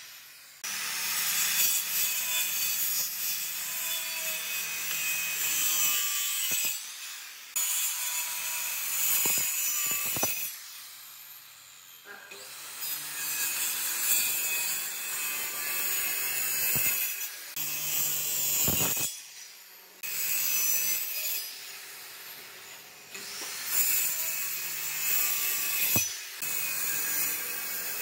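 Maktec handheld circular saw running and cutting a series of crosscut kerfs into a thick hardwood beam. The sound breaks off sharply and comes back several times between cuts.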